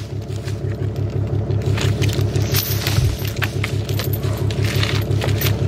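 Steel log chain clinking and scraping as it is wrapped by hand around a pine log, over an engine idling steadily with an even low throb.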